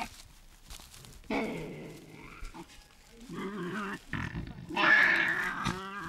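Tasmanian devil joeys calling harshly in a few short bouts, the loudest about five seconds in.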